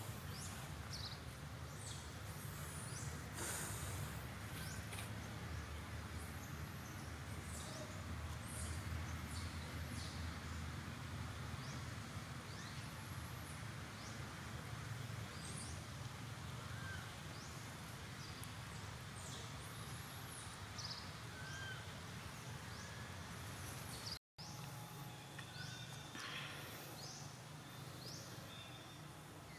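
Outdoor ambience: a steady low hum with many short, high-pitched animal chirps and squeaks scattered throughout; the sound drops out for an instant about 24 seconds in.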